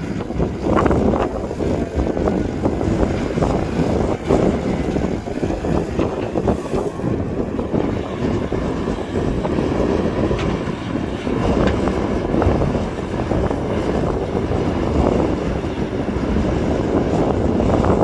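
Heavy diesel earthmoving machinery running steadily, a continuous low engine noise with some irregular rumble that may be wind on the microphone.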